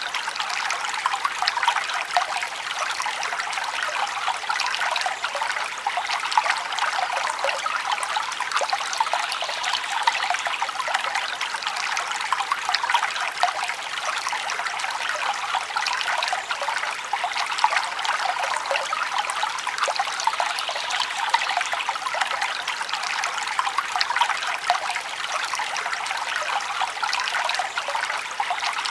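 Forest brook flowing steadily over its bed, a bright, even trickling and babbling full of small splashes, with little low rumble.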